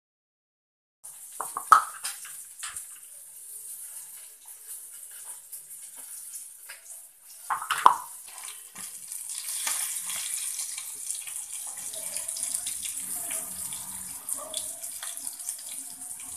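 Steady hiss of food sizzling in a frying pan, with two loud clanks of steel utensils, about 2 s and 8 s in.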